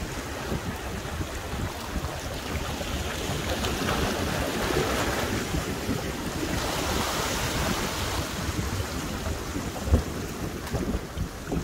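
Sea waves washing and surging over shoreline rocks, with wind buffeting the microphone. A single sharp thump comes near the end.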